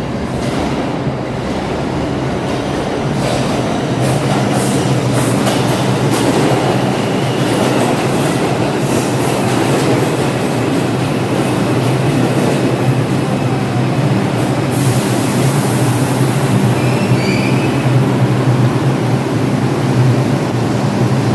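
New York City subway 2 train (R142 cars) rolling into the station along the platform. Its wheels and motors make a steady rumble with a low hum that grows louder about four seconds in, and there are brief wheel squeals.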